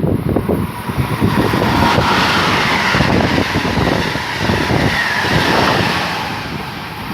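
A train passing at speed, a loud rushing rumble that builds quickly, holds, then begins to fade near the end, with wind buffeting the microphone.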